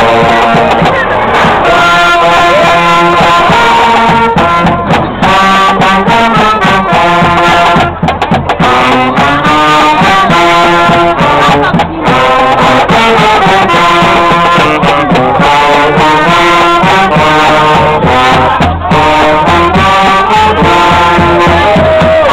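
Live street band of saxophones, trombone, low brass and bass drum playing a tune, loud and continuous.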